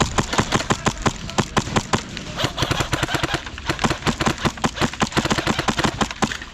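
Airsoft guns firing: a rapid, uneven string of sharp snapping shots, several a second.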